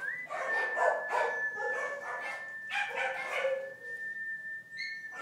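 Rescue puppies barking and yipping repeatedly, about one bark a second, over a steady high-pitched tone.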